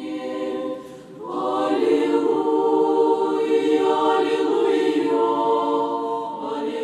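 Choir singing slow, sustained chant-like chords. The voices dip briefly, then swell louder about a second in and hold.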